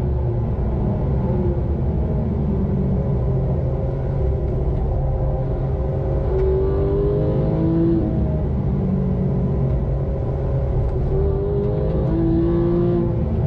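Porsche 911 GT3 (991.2) 4.0-litre naturally aspirated flat-six at full track pace, heard from inside the cabin over road and tyre rumble. The revs drop as it brakes for a corner, then rise twice as it accelerates out.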